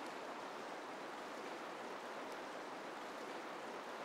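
Steady rush of river water flowing over rocky rapids.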